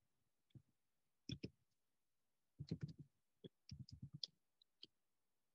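Faint typing on a computer keyboard: short key clicks in a few irregular runs.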